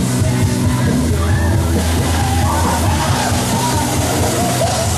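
Loud rock-style music, with a voice singing over it.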